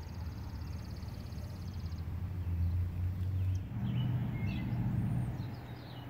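Outdoor ambience: a steady low rumble, the loudest sound, which shifts slightly higher a little past halfway. A high insect trill runs for the first two seconds, and short bird chirps follow from a little past halfway.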